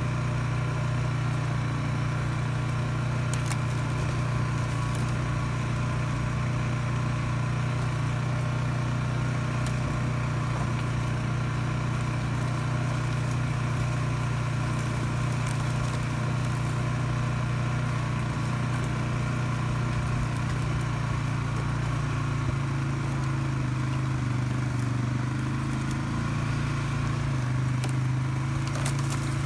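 Polaris Sportsman 570 ATV's single-cylinder engine running steadily at low trail speed, its note lifting slightly about two-thirds of the way through. A few faint clicks sound over it.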